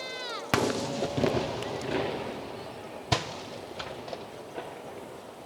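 Fireworks: a shell's whistle drops away, then a loud burst about half a second in, followed by a couple of seconds of crackling and echo. A second sharp bang comes about three seconds in, then a few faint crackles.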